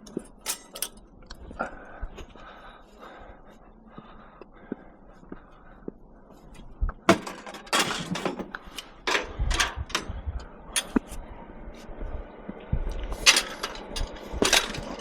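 Scrap metal being handled and shifted: scattered knocks, rattles and scrapes, with a few sharper clanks about halfway through and again near the end.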